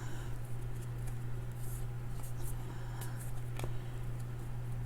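Faint rustling and a few light clicks of trading cards being slid and flipped by hand, over a steady low hum.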